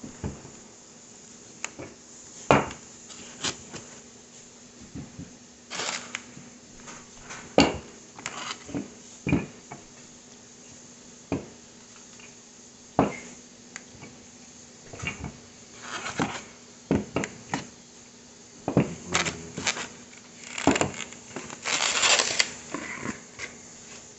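Rolling pin working dough on a board: scattered knocks and clunks with short rubbing, scraping passes, busiest near the end.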